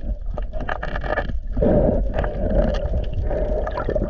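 Muffled rushing water heard through an underwater camera housing, with scattered clicks and knocks. The rushing grows louder about one and a half seconds in.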